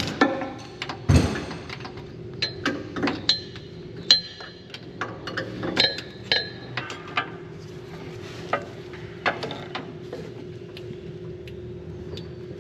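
Metal tools and parts clinking and knocking against steel in irregular strikes, several with a short metallic ring, over a steady low hum.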